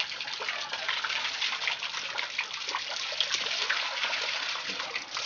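A stream of water pouring from a pipe set in a stone wall and splashing steadily into a shallow pool below.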